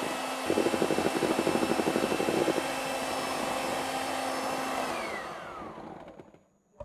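Electric hand mixer whipping meringue (egg whites and sugar) in a bowl: a steady motor whine, with a fast rattle of the beaters in the bowl for a couple of seconds. About five seconds in it is switched off and the whine falls in pitch as the motor winds down, then a single click near the end.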